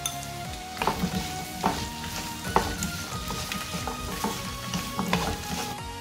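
Whole shallots and garlic cloves sizzling in hot sesame oil in a frying pan while a wooden spatula stirs them, knocking against the pan several times.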